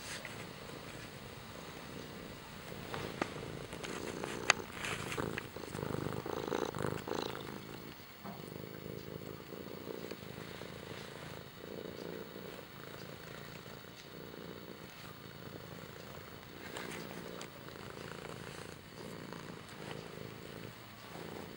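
Tabby cat purring close up as it kneads a fleece blanket: a steady, gently pulsing rumble that swells louder for a couple of seconds about five to seven seconds in. Two sharp clicks cut through it about three and four and a half seconds in.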